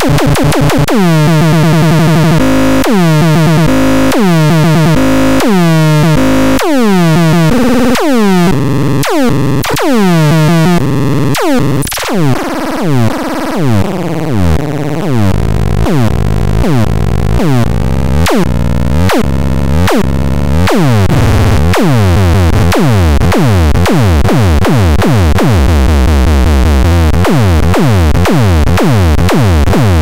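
Handmade TRAKANDAX electronic sound box playing a repeating pattern of synthesized notes, each one sweeping sharply down in pitch like a zap. The repeats come about once a second at first and speed up to several a second partway through as its knobs are turned.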